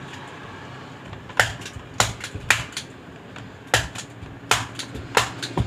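Staple gun firing staples to fasten a rexine seat cover to a two-wheeler's plastic seat base: a series of about eight sharp snaps at irregular intervals, starting about a second and a half in.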